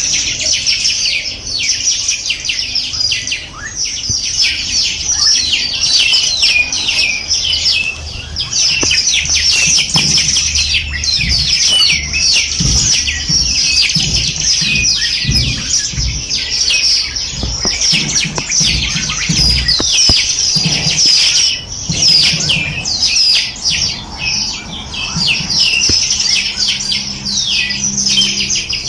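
A flock of small songbirds chirping and twittering together in a dense, continuous chorus of quick, high, falling notes and trills.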